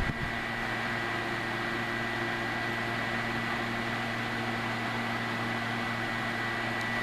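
1995 Windemere 14-inch box fan running steadily on high speed with its louvered grille rotating: a constant rush of air over a low motor hum and a faint high whine.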